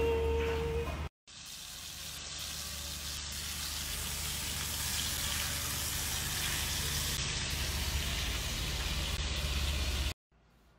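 Sliced meat sizzling steadily as it fries in an electric pan, an even hiss that cuts off abruptly near the end.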